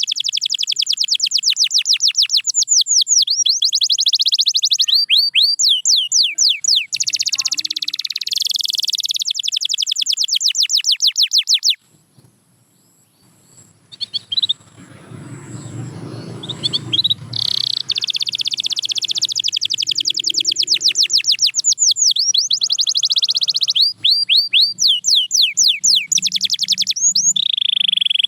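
Canary singing a long song of fast trills, each a rapid run of repeated notes high in pitch, with the pace changing from phrase to phrase. The song stops for a couple of seconds about halfway through, a low soft rushing noise follows, and then the trills start again.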